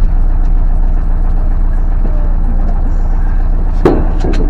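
Narrowboat engine running steadily with a low rumble. A few sharp knocks come near the end.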